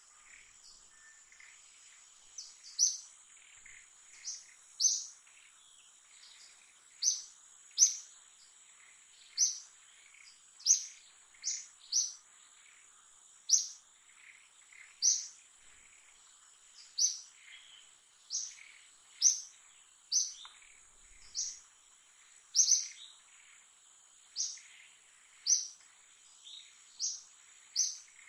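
A bird calling over and over with short, sharp high notes, about twenty in all at irregular gaps of roughly a second, over a steady high-pitched insect drone.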